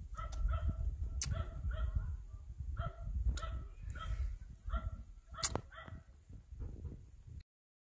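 A dog barking repeatedly in short, high yaps, coming in quick runs, over a low rumble on the microphone.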